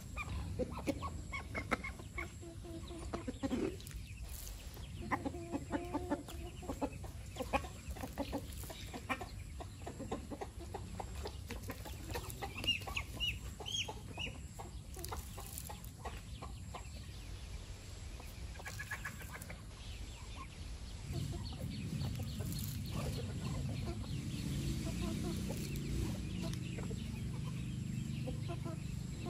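Backyard chickens clucking as they forage, with short high peeps from chicks. A steadier low sound joins in for the last third.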